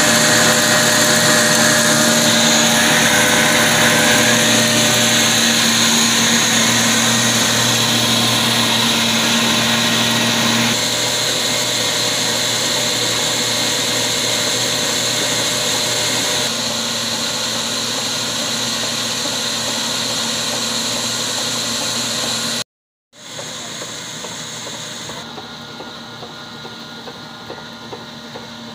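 Small flour mill grinding wheat, belt-driven by an old 20 HP diesel engine, with a steady loud whirr and grinding. The sound drops out for a moment near the end, then comes back quieter, with the engine's slow regular beats heard more plainly.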